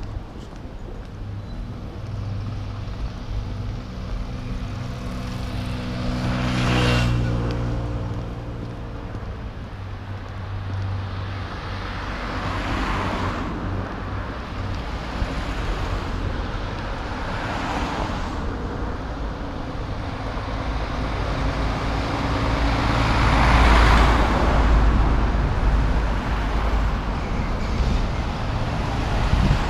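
Road traffic on a busy street: cars and trucks passing one after another over a steady low rumble. The loudest pass-bys come about 7 seconds in, with an engine hum, and again near the 24-second mark.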